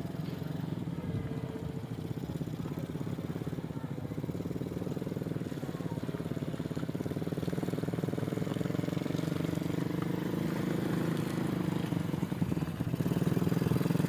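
Small ATV engine running steadily, growing a little louder over the second half.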